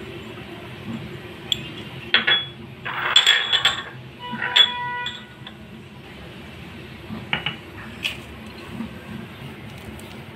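Small cut-glass bowls knocking and clinking against each other and the glass mixing bowl as they are handled and set down: a cluster of knocks about two to four seconds in, then one ringing glass clink just before the five-second mark. A few lighter taps follow a few seconds later.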